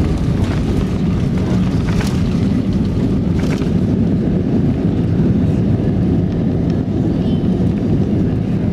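Cabin roar of an easyJet Airbus A320-family jet touching down and rolling out with its spoilers raised: a loud, steady low rumble of engines and wheels on the runway, with a couple of short knocks about two and three and a half seconds in.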